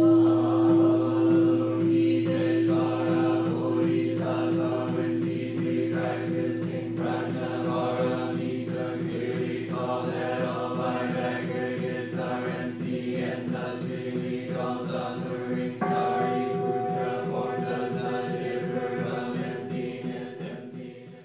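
Zen chanting: voices intoning in unison on one sustained note over a low drone, with a regular beat running under it. Near the three-quarter mark the chant moves up to a higher note, and it fades out at the end.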